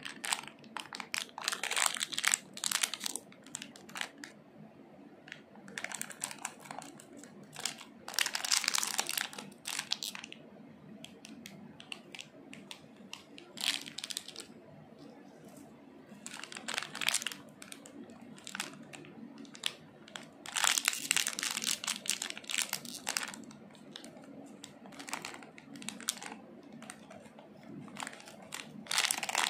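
Plastic lollipop wrappers crinkling in irregular bursts as they are handled, snipped open with scissors and peeled off the candy.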